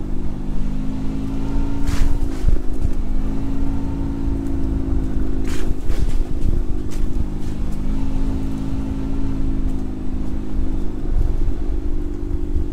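A vehicle's engine running at a steady speed while driving over a bumpy dirt track, with a few sharp knocks or rattles from the bumps.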